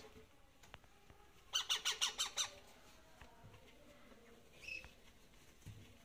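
A parrot gives a fast, harsh run of squawks lasting about a second, about a second and a half in, followed a few seconds later by a single short call.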